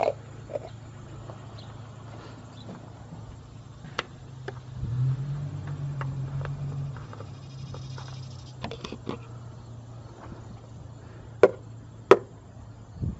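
A few sharp clicks and knocks from a hand working in a small car's engine bay, the loudest two close together near the end, over a steady low hum that swells for a couple of seconds midway.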